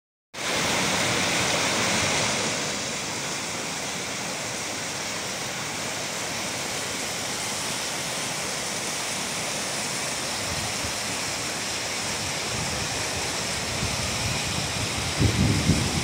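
White-water rapids of a rocky mountain stream rushing steadily, a little louder in the first two seconds. Near the end, low gusts of wind buffet the microphone.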